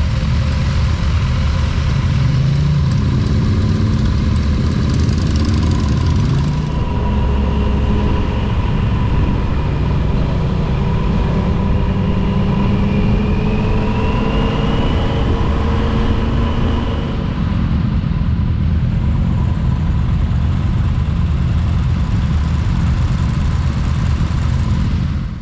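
Motorcycle engines running in a group ride: bikes idling and blipping at a stop, then the rider's own motorcycle running along the road, its engine pitch rising as it accelerates, under a constant low rumble.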